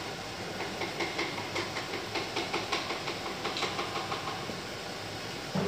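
Pots boiling and simmering on a gas stove: a steady hiss, with a run of quick ticks and pops, roughly four a second, through the middle. A short dull thump comes near the end.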